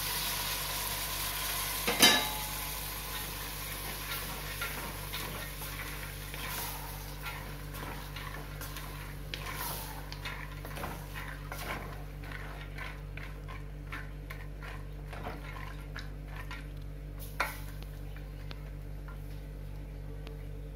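Wooden spatula stirring soaked dried white peas into fried masala in an aluminium pressure cooker, with many small scrapes and taps against the pot and a faint sizzle that dies away. A loud metal clank about two seconds in, and a sharper knock near the end.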